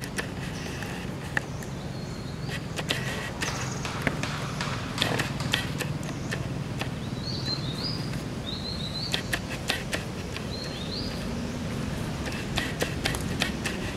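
Scattered crackles and clicks of dry leaf litter being stepped on, with a few short, high chirping calls in the middle, under a steady low outdoor rumble.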